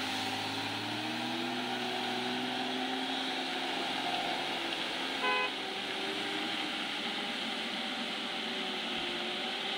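Loaded multi-axle diesel lorry running past and pulling away, its engine note rising over the first couple of seconds, with steady engine and road noise. A short single horn beep sounds about five seconds in.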